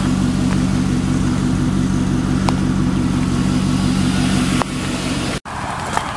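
Pickup truck engine idling steadily. The hum falls away about four and a half seconds in, and the sound cuts out for an instant just after.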